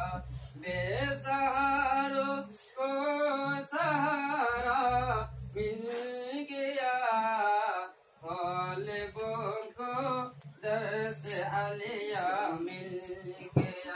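Unaccompanied Urdu devotional singing: one voice sings a manqabat (a praise song for a Sufi pir) in long, gliding, ornamented phrases, with short pauses for breath between them.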